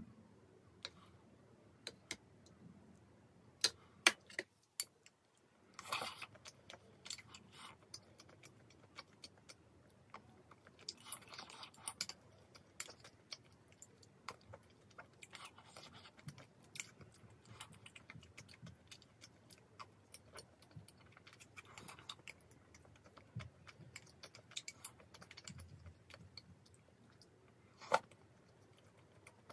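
Close-up eating sounds: a wooden spoon tapping and scraping a bowl in many small, irregular clicks, with chewing and a few louder sips of ramen broth.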